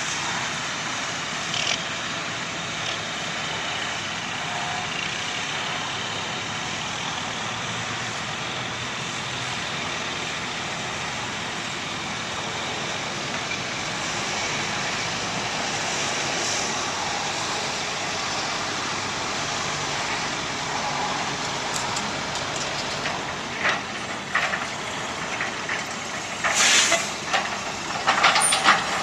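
Heavy diesel construction machinery running steadily, with a series of sharp clanks and knocks in the last several seconds.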